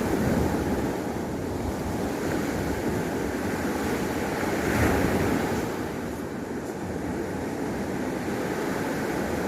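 Surf washing onto a beach, with wind blowing across the microphone; the wash swells slightly about five seconds in.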